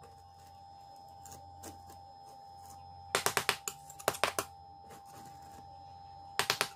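Metal putty knife scraping grit off a wooden floor in short quick strokes, heard as three bursts of rapid scratchy clicks, about 3 s in, about 4 s in and near the end. The surface is being cleaned so the peel-and-stick vinyl tile will stick. A faint steady hum sits underneath.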